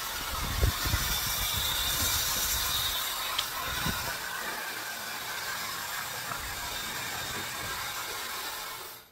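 Cecotec Bamba CeramicCare SuperSonic hot air styler's dryer body, with no attachment fitted, blowing a steady rush of air. A few low buffeting thumps come about half a second in and again around four seconds in, and the air cuts off abruptly near the end.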